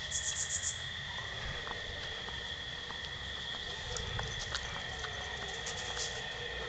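Crickets trilling steadily, one continuous high tone, with a short run of quick, higher chirps just after the start and a few faint clicks.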